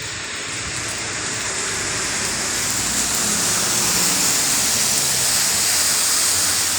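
Heavy rain falling, a steady hiss that swells over the first few seconds and then holds.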